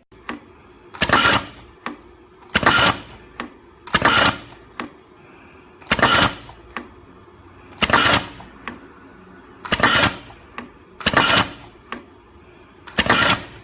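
Semi-automatic wire stripping and crimping machine with a 2-ton press, cycling repeatedly: eight loud, short mechanical strokes, roughly one every one and a half to two seconds, with lighter clicks between them over a steady hum.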